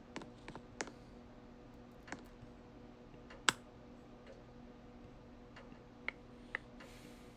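Faint steady hum with scattered, irregular clicks and ticks, one sharper than the rest about three and a half seconds in, around ceiling fans with broken blades and snapped blade arms.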